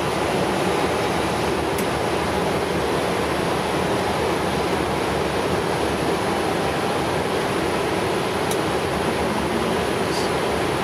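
Steady rush of airflow and engine noise on a Boeing 777-300ER flight deck in flight, with three faint ticks over it.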